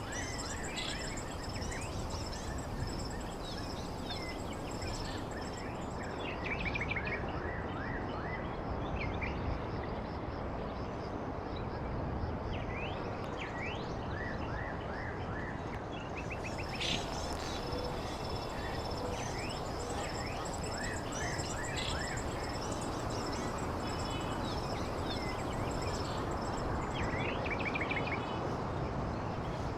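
Rural outdoor ambience: birds chirping in short, scattered calls over a steady, shrill insect drone and a constant background rush.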